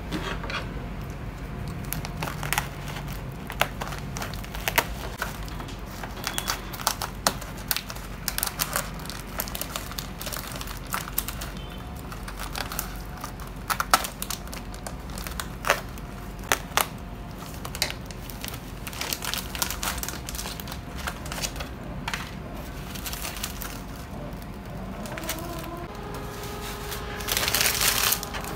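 Thin plastic wrapping on a pack of ladyfinger biscuits crinkling and crackling as it is cut open with scissors and the biscuits are slid out onto their plastic tray, in scattered sharp crackles. Near the end a louder, denser rustle comes as the emptied wrapper is scrunched in the hands.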